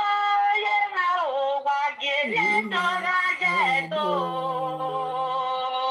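A woman singing long, held notes that slide up and down, with a lower steady note beneath through the middle.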